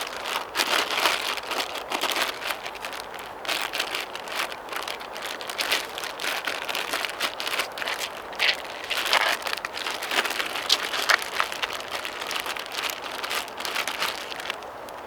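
Plastic bag crinkling and rustling as hands knead a stiff dumpling dough inside it and squeeze it out. It is a dense, irregular crackle that stops just before the end.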